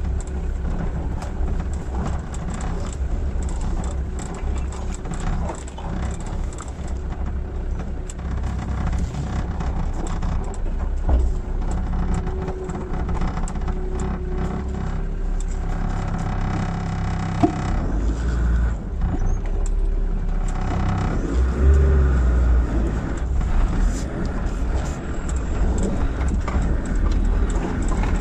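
Land Rover Defender Td5's five-cylinder turbo-diesel engine running as the vehicle drives over a rough dirt track, with frequent knocks and rattles from the body and load. The engine note rises and falls a few times around the middle.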